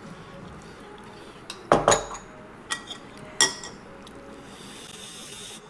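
Metal cutlery clinking against ceramic dishes while eating: four sharp clinks near the middle, the first two close together and the loudest.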